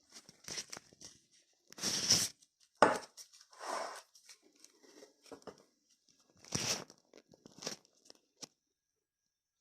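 Intermittent rustling and crinkling handling noises with a few light knocks, in several short separate bursts, then silence near the end.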